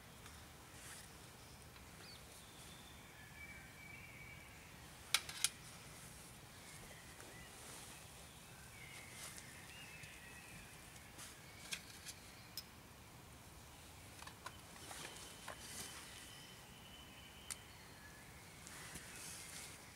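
Dry tinder being broken up and worked in the hands: scattered sharp snaps and crackles, with a soft rustle near the end. Faint birdsong calls on and off in the background.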